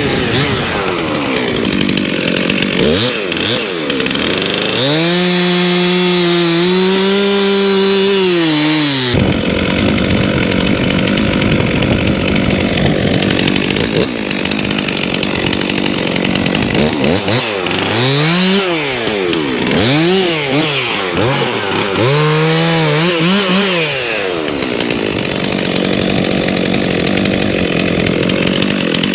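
Chainsaw engine revving up and down over and over, held at high revs for a few seconds at a time, as in cutting into a tree.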